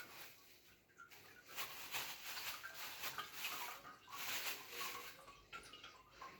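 Liquid splashing and trickling in short, uneven bursts.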